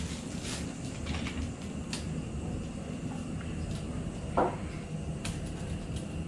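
Light clicks and knocks of a flexible hose and its fittings being handled and fitted to a steam boiler, with one louder knock about four seconds in, over a steady low hum.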